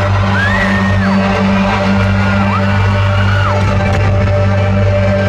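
Concert crowd screaming and whooping over steady droning walk-out music, with a deep sustained bass note underneath.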